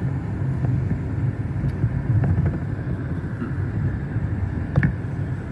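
Steady low rumble of a moving car's engine and tyres, heard from inside the car, with one short click near the end.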